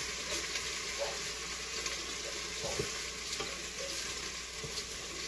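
Minced garlic and chicken thighs sizzling in oil in an Instant Pot's inner pot on sauté, while a wooden spoon stirs them, with a few light knocks of the spoon against the pot.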